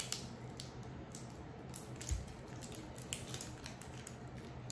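Faint crinkling and rustling of a clear plastic wrapper being picked and peeled off a plastic toy egg, in scattered small clicks.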